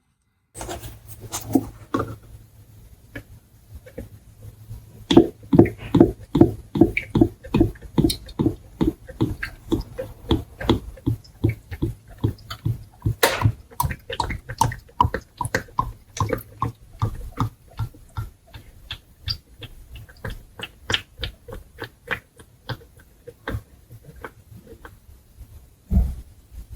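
Motor oil glugging out of a bottle as it is poured into the engine's oil filler, an even run of gulps about three a second. A single low thump comes near the end.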